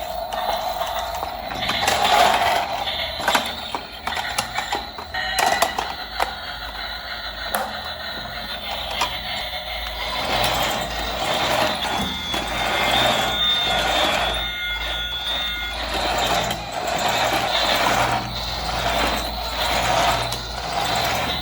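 A battery-powered toy's plastic gear mechanism running with a whirring, clicking rattle. Electronic beeping tones from the toy join in about halfway through.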